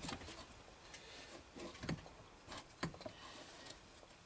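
A few faint, scattered metallic clicks as a steel case-splitter tool is worked onto a chainsaw engine's crankcase in a tight fit; otherwise quiet.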